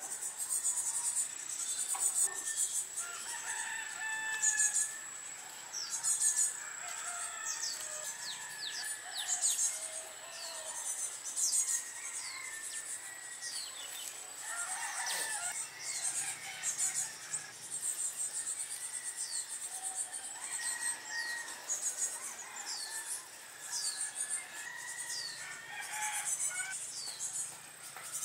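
Farmyard and bird ambience: chickens clucking and a rooster crowing, with small birds giving short, falling chirps about once a second. A thin, steady high whine runs through the first half.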